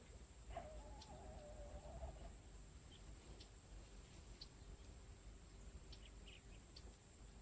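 Near silence: faint outdoor ambience. About half a second in, one faint wavering call lasts under two seconds, followed by scattered faint short high chirps.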